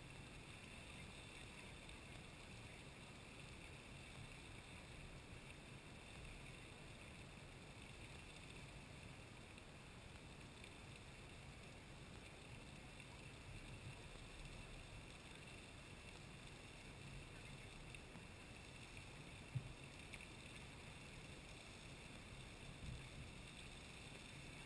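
Faint, steady rushing hiss of the Lady Knox Geyser's erupting water column, with a single short knock near the end.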